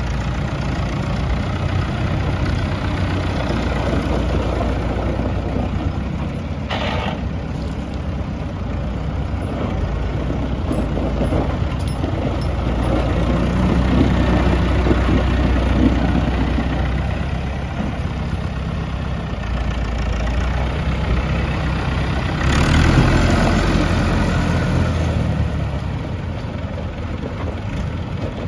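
Massey Ferguson 165 tractor's engine running steadily as the tractor is driven, growing louder as it passes close and easing off as it pulls away near the end.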